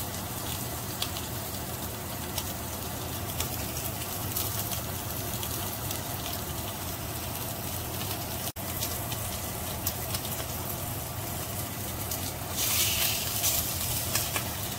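Sous-vide rib steak searing in a hot cast iron skillet: steady sizzling with fine crackling spatters, rising to a louder burst of sizzling near the end.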